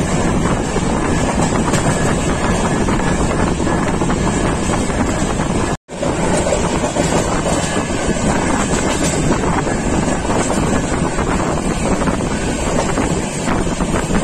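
Express passenger train running at speed, heard from an open carriage window: a steady rumble of the train mixed with wind buffeting the microphone. The sound cuts out for a split second about six seconds in.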